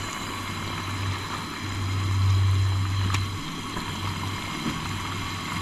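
Low drone of a passing motorboat engine, swelling about two seconds in and then easing off, over a faint hiss. One light click about three seconds in.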